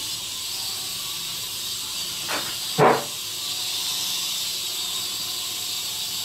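Syma S100 micro coaxial RC helicopter's tiny motors and rotors whirring in flight, a steady high-pitched hiss. Two short knocks come about two and a half and three seconds in, the second much louder.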